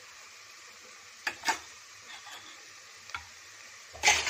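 Chopped onion, green chillies and spices frying in oil in a steel pot with a soft, steady sizzle. Short clicks come about a second and a half in, and a louder clatter of a metal spoon against the pot starts near the end.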